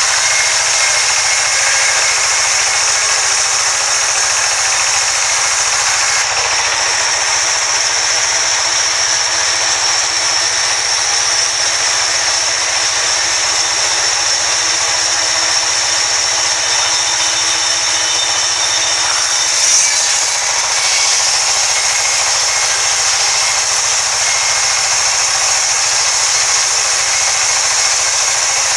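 Vertical band sawmill blade running and cutting lengthwise through a log, a steady, loud, high-pitched sawing noise. A brief knock sounds partway through.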